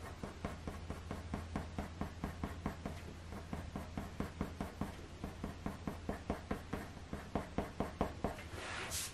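Faber-Castell Polychromos coloured pencil (dark sepia) scratching on hot-press watercolour paper in quick, short back-and-forth blending strokes, several a second.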